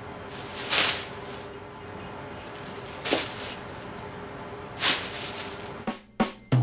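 Thin plastic shopping bag crinkling and rustling in three short bursts about two seconds apart as it is shaken and handled. A few sharp clicks come near the end.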